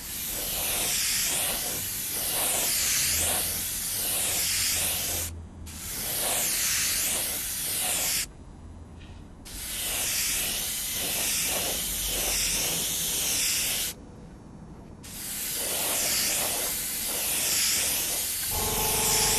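Airbrush spraying a clear acrylic wax coat for a satin finish, hissing in four long passes of about two to five seconds each with short pauses between.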